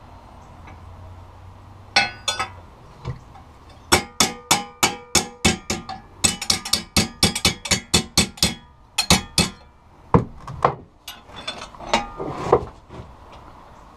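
Hammer blows on 1/8-inch steel bar, each with a metallic ring: a few single strikes, then a quick run of about three blows a second for five or six seconds, then a few scattered knocks. The steel is being hammered to straighten or correct a bend.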